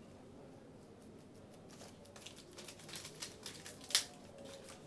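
Light crinkling and irregular clicks from something being handled, starting about two seconds in, with one sharp click about four seconds in.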